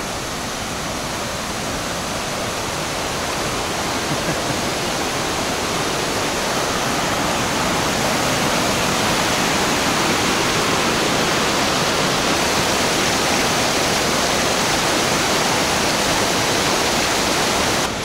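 Steady rush of a mountain waterfall and the torrent below it: a dense hiss of falling and tumbling water that grows louder over the first several seconds, then holds steady.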